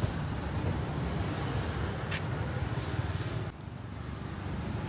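Street ambience with a steady traffic rumble, with a short hiss about two seconds in. About three and a half seconds in it cuts abruptly to a quieter, similar street background.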